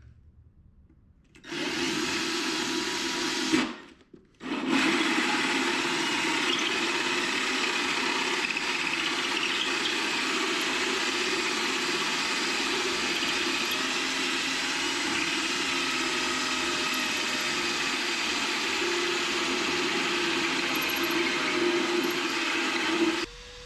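Power drill spinning a hole saw through a half-inch wood panel to cut the speaker-terminal opening. It runs for about two seconds, stops briefly, then runs steadily for about twenty seconds and cuts off near the end.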